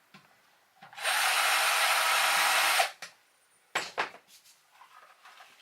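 Cordless drill-driver running steadily for about two seconds, backing out a screw from the RV toilet fitting, followed by a couple of short knocks as parts are handled.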